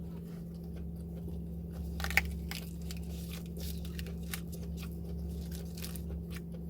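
Close-up mukbang eating sounds: a person biting and chewing crisp food, a string of short crunches and wet clicks, with one sharper crunch about two seconds in.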